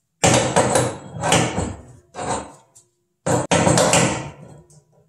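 Two adjustable wrenches clinking and scraping against a brass gas adapter as it is tightened onto a propane dryer's gas inlet, in three short bouts of metal clatter.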